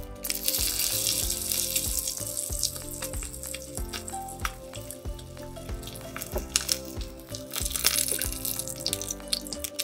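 Oil sizzling as a red snapper fillet fries in a miniature metal wok. The hiss is loudest at the start and again about eight seconds in, with light clicks of chopsticks turning the fish against the pan, over background music.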